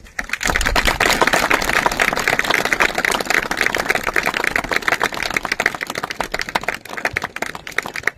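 Audience applauding: a dense patter of clapping that starts suddenly and thins out near the end.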